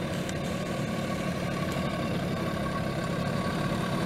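Suzuki LT50 children's quad bike's 49 cc two-stroke engine running at a steady low speed, growing slightly louder.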